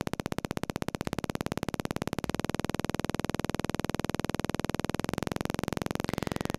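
Low-frequency square wave from a synthesis patch, heard as a rapid, even train of clicks, one at each rise and fall of the wave. The clicks run at about 16 a second and speed up to about 20 a second as the frequency is raised. At this rate they merge into a throbbing rather than countable clicks.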